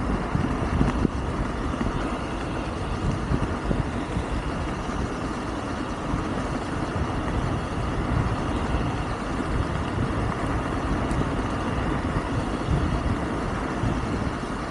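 Wind rushing over the microphone and tyre noise from a Wolf King GT Pro electric scooter riding along a path. A faint steady whine sits over the rush.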